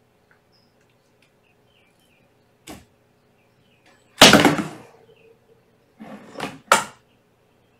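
A camera tripod toppling onto a hardwood floor: a small knock, then a loud clattering crash about four seconds in that dies away within a second, then a rougher rattle and a second sharp crash near the end.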